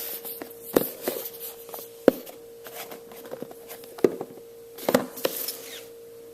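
A phone's retail box and packaging being handled, giving scattered knocks and clicks, with a cluster of them near the end. A faint steady hum runs underneath.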